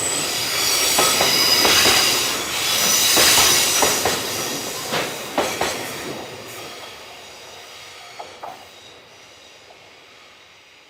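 Freight train wagons rolling by with steel wheels squealing high and clacking over the rail joints. The sound dies away over the second half as the train moves off.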